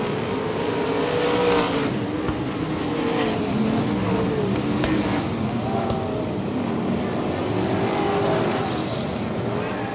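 Several 360 wingless sprint cars' V8 engines racing on a dirt oval, overlapping engine notes rising and falling as the cars come through the turns and down the straights.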